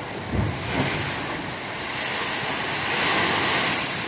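Big, rough ocean surf breaking and rushing, swelling to its loudest about three seconds in. Wind buffets the microphone briefly near the start.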